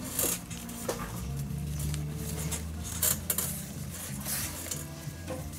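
Leather glove lace being threaded and pulled through a baseball glove's fingers by hand: short scrapes and rustles of lace on leather. Quiet background music with low notes plays underneath.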